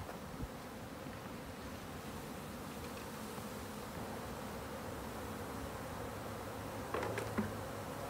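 A swarm of honeybees flying in the air, a steady, dense buzzing hum. About seven seconds in, a few short knocks.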